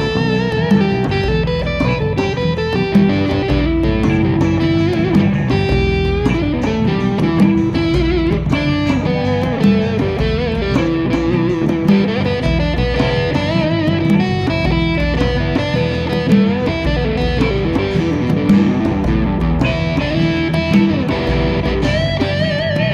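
A live band plays an instrumental passage without vocals: an electric guitar melody over bass guitar and acoustic guitar.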